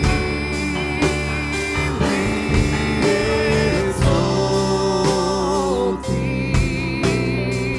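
Church worship band and singers performing a slow worship song: long held sung notes with vibrato over sustained instrumental chords and a steady beat about once a second.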